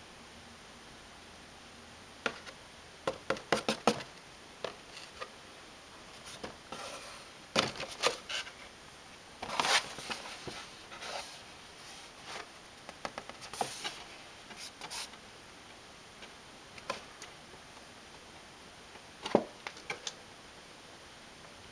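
Retail CPU box and its plastic packaging being handled and opened: scattered sharp clicks and taps with brief rustles, coming in quick clusters with pauses between them.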